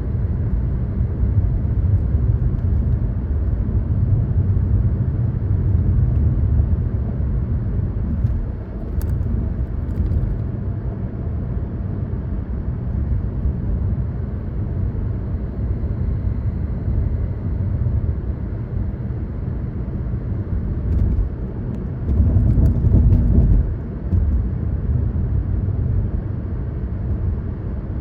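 A car driving at speed, its engine and tyres making a steady low rumble that swells briefly about three-quarters of the way through.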